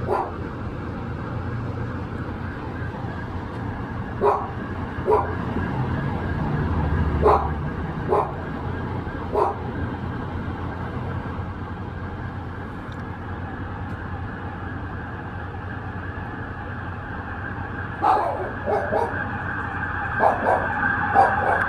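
A dog barking in short single barks, about six in the first ten seconds and a quick run of them near the end, over the wail of a distant emergency siren that grows louder toward the end, with a steady low city rumble underneath.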